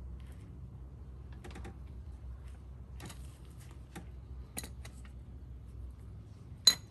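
Scattered light metallic clicks and taps of a ratchet and socket being worked and handled at the drain plug under a Honda Helix scooter's engine. Near the end comes one sharp, ringing metal clink, the loudest sound.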